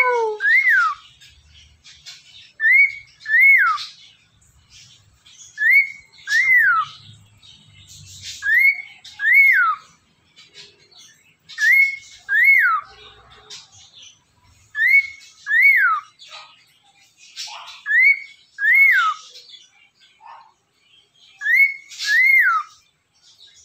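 Cockatiel whistling the same two-note phrase over and over, about every three seconds: each note is a quick rise and a long falling slide. The owner takes the whistling for courting.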